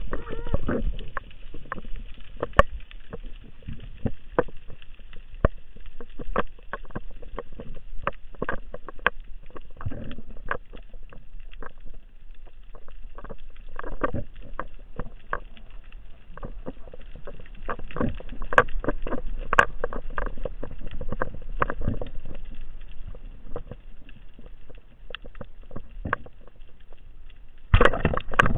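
Underwater sound picked up through a diving camera's housing: a steady low water rush with many irregular clicks and knocks, and a louder burst of noise near the end.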